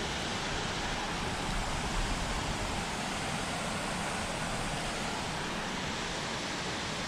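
Steady rushing of flowing creek water, an even hiss without breaks.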